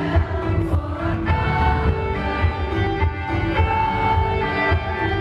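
Live rock band playing with a row of taiko drums pounding a dense low beat, with long held notes sounding over it.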